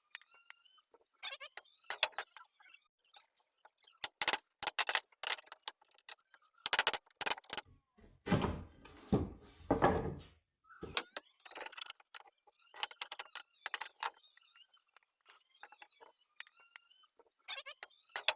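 Hand tools working wood: a chisel cutting a joint, with irregular sharp knocks and taps, and a denser stretch of scraping about eight to ten seconds in. Faint bird chirps come between the knocks.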